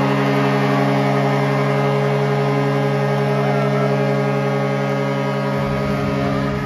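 Arena horn sounding for the home team's win: one loud, steady, multi-tone horn blast held for several seconds over crowd noise, cutting off near the end.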